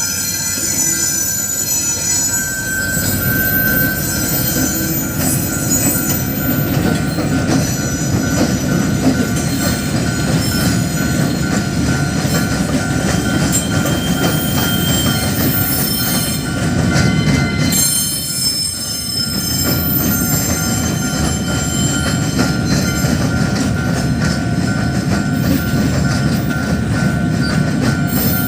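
Freight train rolling across a level crossing: a steady rumble of wheels on rail with high-pitched wheel squeal over it, and a brief lull in the rumble about two-thirds of the way through.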